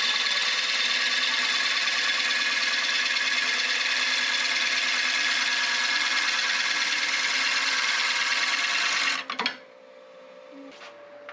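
Bowl gouge taking a shallow, slow finishing cut on a wooden bowl spinning on a wood lathe: a steady shearing hiss over the lathe's running whine. The cutting noise stops abruptly about nine seconds in as the tool comes off the wood, leaving the quieter hum of the lathe.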